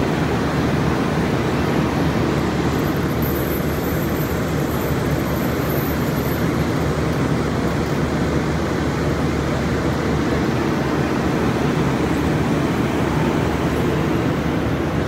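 Union Pacific passenger cars rolling past close by: a steady, even noise of steel wheels running on the rails.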